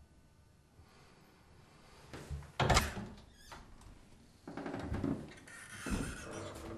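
A few knocks and thuds, the loudest a little under three seconds in and two weaker ones about two and three seconds later, with some rustling between them.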